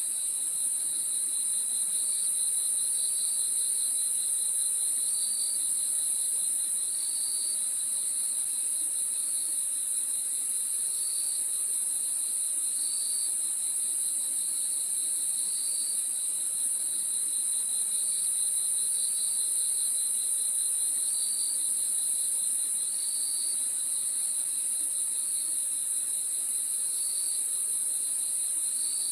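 Crickets chirping in a night chorus: a steady high-pitched trill, with a lower pulsing chirp that comes in short phrases about every two seconds.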